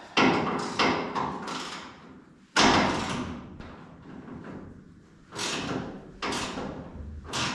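A series of about six sharp clanks and knocks, each dying away with a short ringing tail, from hand work on the pickup's roll pan and its fastenings.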